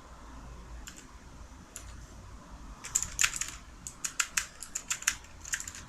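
Keys of a blue-switch mechanical gaming keyboard being pressed and clicking: a few single presses, then a quick run of clicks from about three seconds in.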